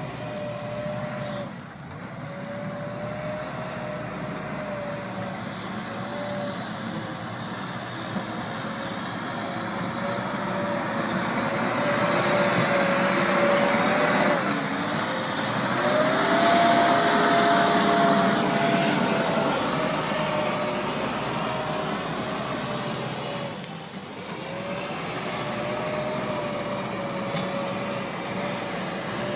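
Hidromek 102S backhoe loader's diesel engine and hydraulics running under load, with a steady whine. Midway it revs up, the whine rising in pitch and loudness for several seconds, then settles back.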